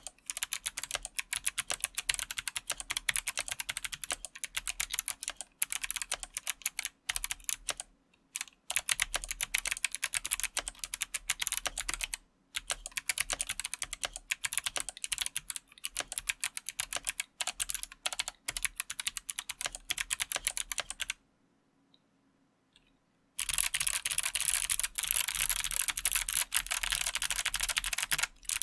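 Fast typing on a TKC1800 mechanical keyboard with clicky Kailh Box Pink switches in a carbon fibre plate, under IFK keycaps: rapid, crisp key clicks in runs with brief pauses. There is one stop of about two seconds, a little past two-thirds of the way through.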